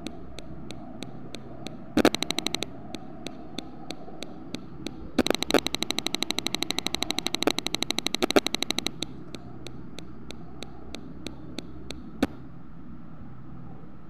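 Rapid sharp clicking over a faint steady hum. It comes as sparse ticks about three a second, with dense runs of about ten a second twice, the longer one lasting some four seconds. A single louder click comes near the end.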